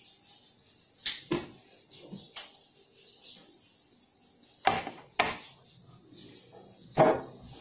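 A few sharp knocks and clinks from a ceramic coffee mug with a spoon in it being handled and set down on a hard tabletop, the main pair about five seconds in, and a louder single knock near the end.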